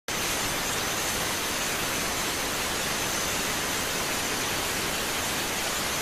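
Steady rushing of flowing river water, an even hiss that never rises or falls, with a thin high whine running through it.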